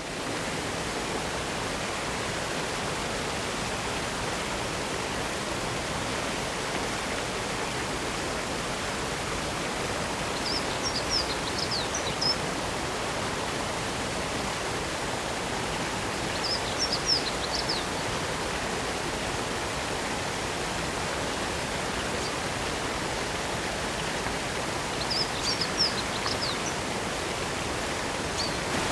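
Waterfall of spring water falling steadily over rock, an even rushing sound. A small bird sings short high chirping phrases three times over it.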